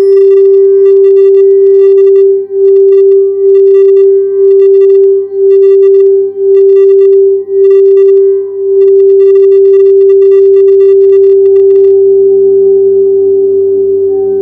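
Quartz crystal singing bowl being sung by rubbing its rim, giving one loud, steady pure tone that wobbles in level about once a second. After about eight seconds the wobble stops and the tone rings on, slowly fading near the end.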